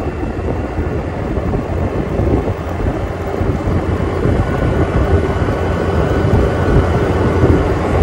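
Motor scooter running at steady cruising speed, its engine hum mixed with wind rushing over the microphone.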